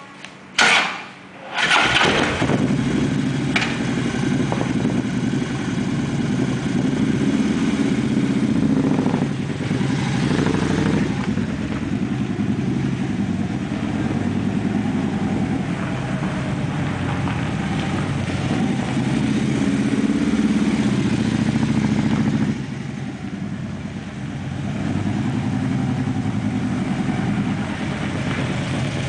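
Harley-Davidson V-twin motorcycle engine with a sidecar fitted, started with a brief crank about a second and a half in, then running steadily as the rig is ridden around. The engine sound drops for a couple of seconds near the end, then picks up again.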